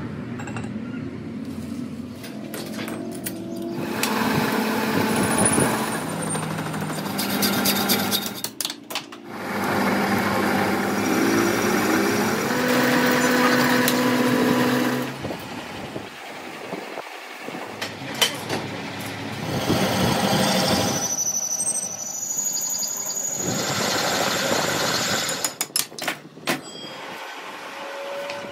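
Workshop machine noise from a run of short clips: a metal lathe running and turning a steel axle shaft, among other shop machinery. The steady running sound changes or breaks off abruptly several times as one clip gives way to the next.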